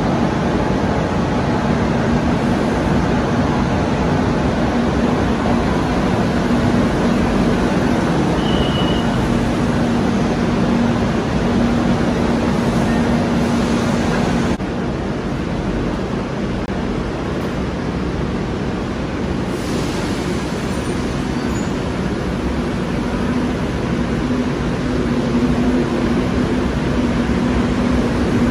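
Madrid Metro trains running through an underground station: a steady rumble of wheels on rail with a low motor hum. The sound drops suddenly about halfway through, then builds again near the end as a train moves along the platform.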